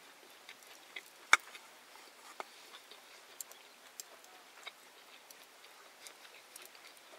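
Scattered sharp clicks and pops over a faint steady hiss, one much louder about a second and a half in.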